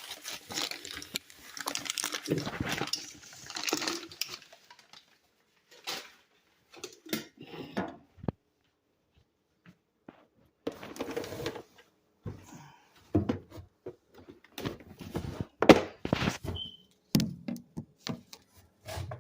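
Coffee maker parts being washed and handled at a kitchen sink: a rush of noise for the first few seconds, a quiet stretch, then scattered knocks and clatter of dishes and parts being set down.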